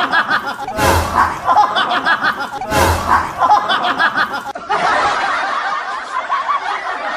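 Snickering laughter that seems to repeat in a loop, with a sharp knock about a second in and again near three seconds. The laughter goes on in a different form from about halfway through.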